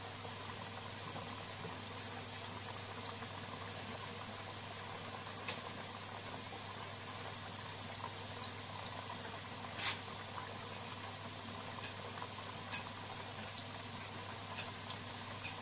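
Potato fries deep-frying in a pot of hot oil on their first pre-fry: a steady bubbling sizzle with a few sharp pops, the strongest about ten seconds in.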